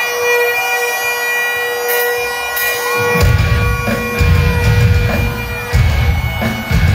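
Live rock band with a bagpipe lead: a steady bagpipe drone under a gliding melody, and about three seconds in the band's heavy low end comes in with repeated stabs under the pipes.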